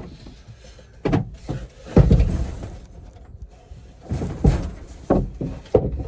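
Wooden boards and a wooden door panel being handled, knocking and thumping irregularly against each other and the box frame, the heaviest thump about two seconds in.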